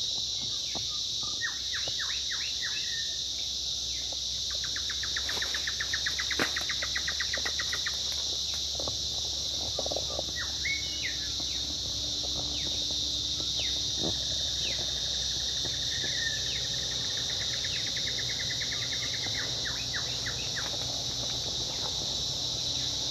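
A steady, high-pitched insect chorus with birds calling over it: scattered chirps, and a rapid trill of repeated notes about five seconds in and again at about sixteen seconds.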